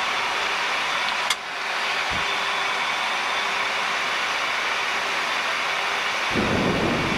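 Steady flight-deck noise of a Boeing 737 on final approach with gear down: airflow and air-conditioning hiss with a faint steady hum. A single sharp click comes about a second in, and a low rumble joins near the end.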